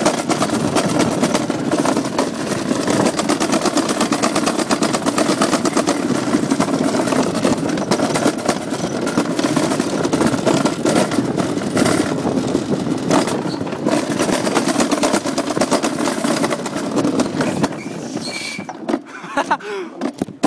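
Summer toboggan sled running fast down a steel track channel: a loud, continuous rattling rumble of rapid clatter. About eighteen seconds in it gets quieter as the sled slows at the bottom of the run.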